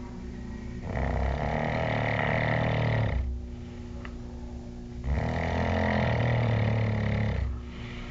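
Loud snoring: two long, rasping snores about four seconds apart, each lasting about two seconds.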